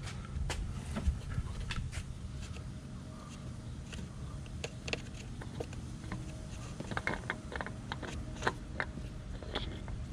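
Scattered light clicks and taps as a new oil filter is turned on by hand onto the filter mount of a Yamaha F250 SHO outboard.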